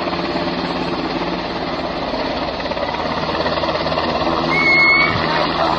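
Sikorsky UH-60M Black Hawk twin-turboshaft helicopter running, its rotors giving a rapid, steady blade chop. About four and a half seconds in, a short high beep-like tone sounds for about half a second.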